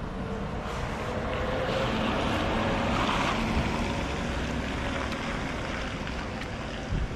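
Traffic on wet pavement: a vehicle's tyre hiss and engine hum that swell to a peak about three seconds in, then ease off.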